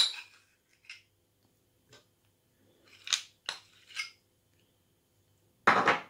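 A spoon scraping and clinking against a small glass jar while scooping out softened butter: a handful of short, separate clicks and scrapes, with a louder brief scrape near the end.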